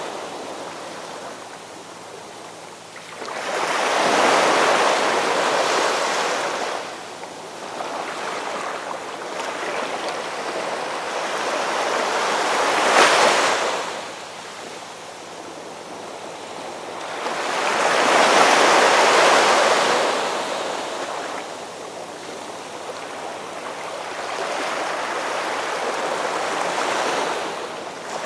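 Ocean waves breaking and washing in: a rushing surf that swells and ebbs four times, one wave every six to eight seconds, the one about halfway through ending in a sharper crash.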